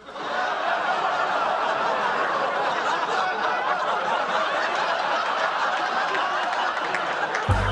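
Studio audience laughing, swelling in at the start and holding steady. A music cue with a low bass line comes in near the end.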